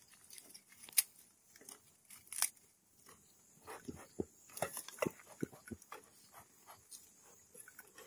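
Bee smoker being prepared: dry fuel rustling and crackling as it is handled and stuffed into the metal smoker can, with scattered sharp clicks. The sharpest click comes about a second in.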